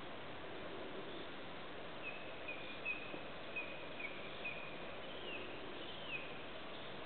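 A songbird singing a phrase of short clear whistled notes, about two a second, ending in a couple of falling slurs, over a steady background hiss. It starts about two seconds in.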